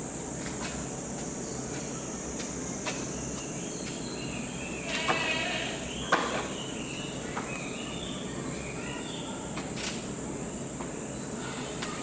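Steady high-pitched insect drone, with people's voices briefly in the background about five seconds in, a few faint chirps after them and a few light clicks.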